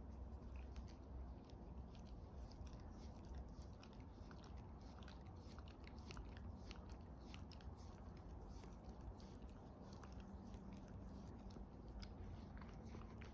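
A dog's mouth sounds: faint, irregular clicking, several clicks a second.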